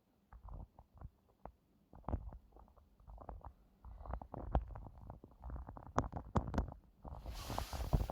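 Shimano Steps E6100 e-bike mid-drive motor making an unwanted noise: irregular knocking and clicking over a low rumble, growing denser and louder after about two seconds. A rushing hiss joins about seven seconds in.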